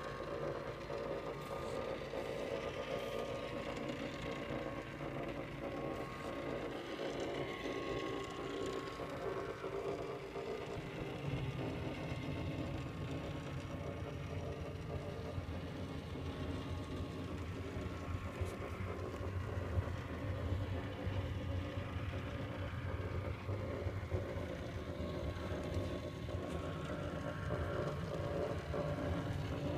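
Electric motors and gearing of a vintage David Hamberger animated Santa display running, a steady mechanical whir as the propeller snowflake spins and Santa waves. A lower hum grows stronger about eleven seconds in.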